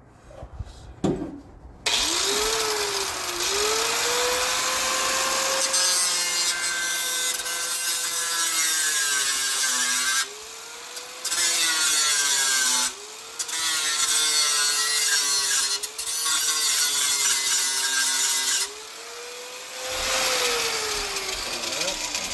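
A cut-off wheel tool cutting through metal in several long runs. Its motor pitch sags as the wheel bites and climbs back as it frees up, with brief stops partway through and a longer one near the end. A couple of knocks come just before it starts.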